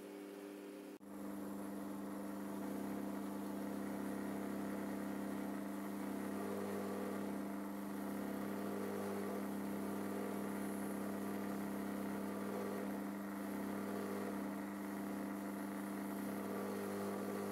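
Small electric bench polisher running with a steady hum while wire pieces are held to its polishing wheel; about a second in the hum becomes louder, and a faint higher tone comes and goes every second or two.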